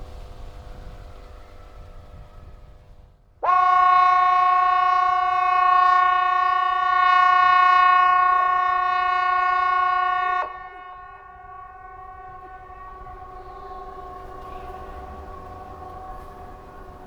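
Hesa Fredrik civil defence warning siren sounding its test signal: one loud, steady tone that starts sharply with a brief rise in pitch a few seconds in, holds for about seven seconds and cuts off. Fainter siren tones at the same pitch go on before and after it.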